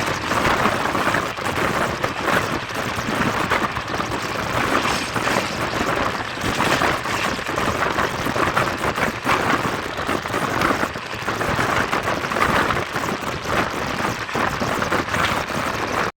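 Train running at high speed through a station without stopping: a loud, dense, unbroken clatter of wheels on rails.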